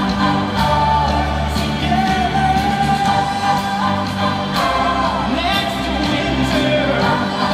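Music with singing: a sung melody with long held notes over a steady bass line and a regular beat.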